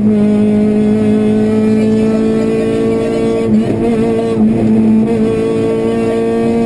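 Honda Civic Type-R rally car's four-cylinder engine running hard, heard from inside the cabin. The engine note holds steady, wavers briefly about three and a half seconds in, then settles again.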